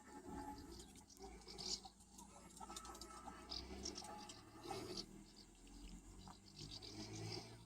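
Faint irregular scratching and light pattering, many small clicks close together, over a soft low hum.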